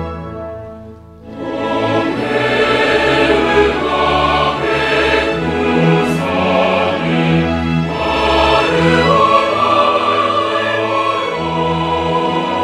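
Background music: a choir singing with orchestral accompaniment. It swells in about a second in, after the previous passage fades away.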